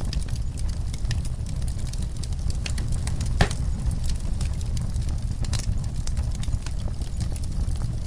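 Wood fire crackling, with scattered sharp pops (the strongest about three and a half seconds in) over a steady low rumble.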